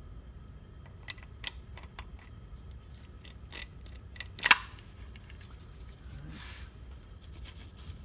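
Metal 4L60E transmission hard parts being handled: scattered light clicks, one sharp metallic clank with a short ring about four and a half seconds in, and a brief scrape a couple of seconds later.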